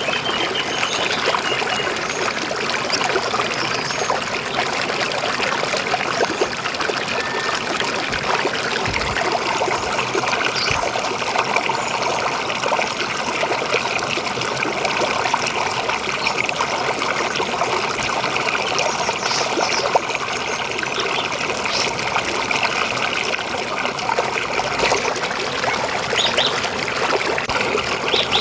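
River water flowing and trickling, a steady, even rush with no break.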